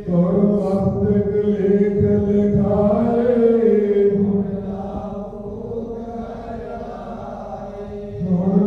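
A man's voice chanting a Sikh devotional chant in long held notes into a microphone. The chant drops softer about halfway through and swells again near the end.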